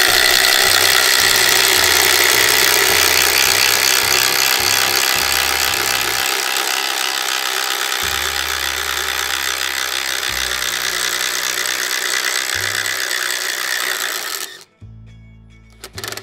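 HiKOKI WH12DD 10.8 V cordless impact driver boring a 22 mm wood auger bit into a timber block. Its impact mechanism hammers under the load, which drops the bit's rotation speed. It stops abruptly near the end.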